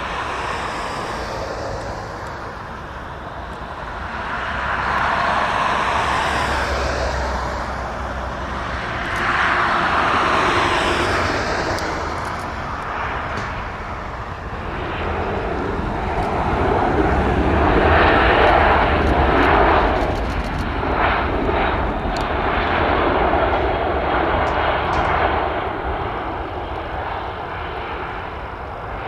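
Airbus A320 jet engines heard through a landing: the aircraft on approach, touching down and rolling out along the runway. The engine noise swells and eases several times, loudest in the middle of the rollout, and dies down as the airliner slows.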